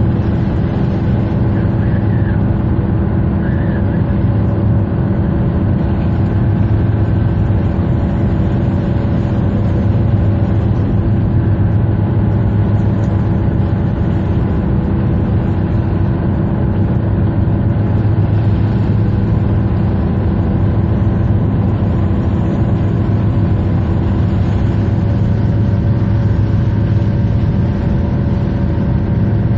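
A tugboat's diesel engines run steadily under load, pushing a loaded barge, with a constant low drone that does not change.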